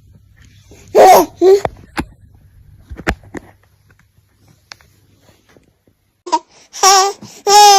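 A baby laughing and squealing: a short burst about a second in, then long high-pitched squeals near the end, with a couple of sharp clicks between.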